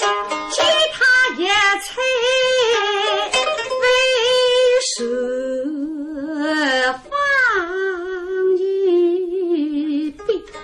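A woman singing a Suzhou pingtan (tanci) aria in long, wavering held notes, accompanied by her own pipa. Plucked pipa notes sound at the start under the voice.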